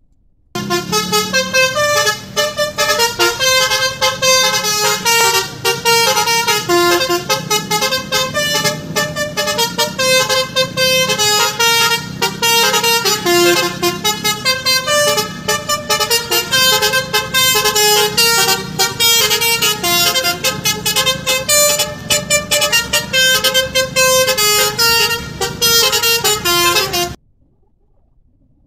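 Indonesian bus 'telolet' multi-tone horn (Basuri) playing a fast melody of short toots that step up and down in pitch. It cuts off suddenly near the end.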